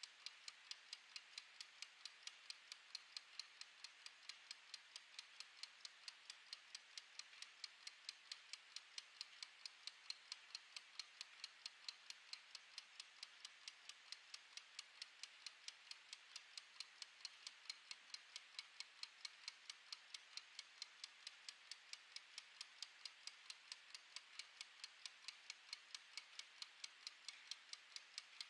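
Wind-up mechanical kitchen timer ticking while it runs down. Its gear escapement gives a faint, fast, perfectly even train of light ticks.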